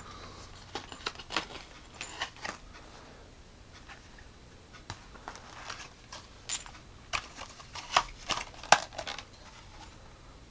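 Flashlight packaging being handled and opened by hand: scattered light clicks and rustles, with a busier run of sharper clicks about seven to nine seconds in.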